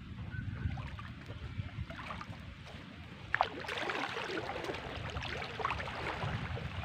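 Water sloshing and splashing around a person's legs as they wade through waist-deep reservoir water, starting with a sharp splash about three and a half seconds in; before that only a low rumble.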